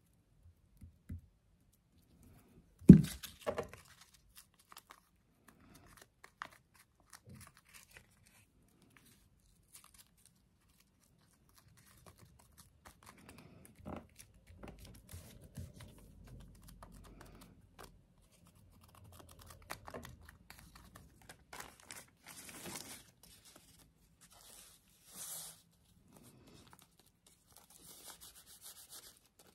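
Paper handling as a glued tea-bag embellishment is pressed and rubbed down onto a journal page: soft rustles and scrapes, with one sharp knock about three seconds in and a few brief hissing rubs near the end.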